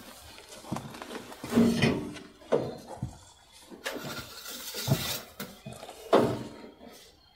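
Irregular knocks, clunks and rustling as hands handle the hoses and parts around an engine bay. The engine is not running.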